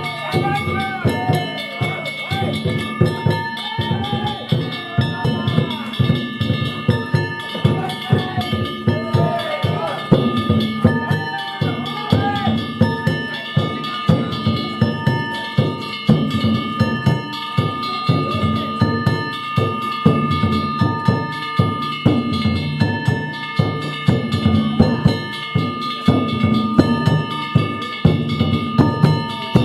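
Danjiri float music: a drum beaten in a fast, even rhythm with hand-struck gongs ringing over it, and voices calling out in the first half.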